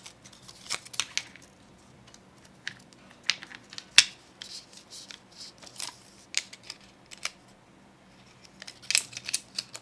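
Scattered small clicks and light rattles from a Nikon F2 film camera's mechanism and the film leader as the film is threaded into the take-up spool. There is one sharp click about four seconds in and a quick run of clicks near the end.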